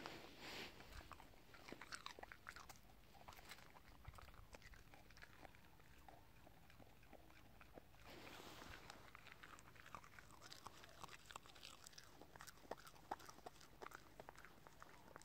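A dog chewing carob pods, with faint, irregular crunches and clicks of its teeth on the hard pods.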